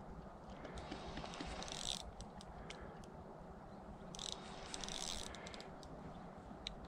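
Spinning feeder reel being cranked as a hooked fish is reeled in, its mechanism clicking and rattling. Two short bursts of hiss come about a second and a half in and again around four seconds in.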